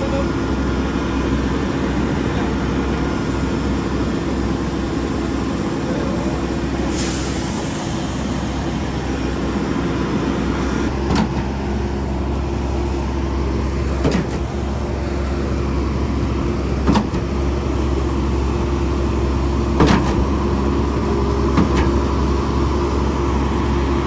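Mack truck's engine running at a steady speed, driving a Schwing truck-mounted concrete pump. There is a brief hiss about seven seconds in. From about eleven seconds in, a sharp knock comes roughly every three seconds as the pump shifts between strokes.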